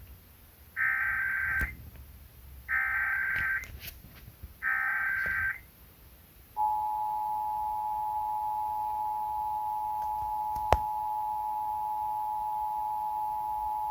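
Emergency Alert System test tones played through a TV speaker: three one-second bursts of SAME digital header data about a second apart, then, about six and a half seconds in, the steady two-tone EAS attention signal (853 and 960 Hz), which keeps on. A faint click comes midway through the tone.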